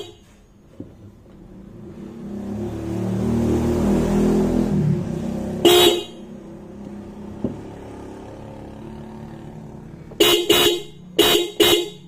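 A pair of Hella disc horns blaring in short, loud blasts: one a little under six seconds in, then four quick beeps in two pairs near the end. Before the first blast, a low rumble swells and dies away.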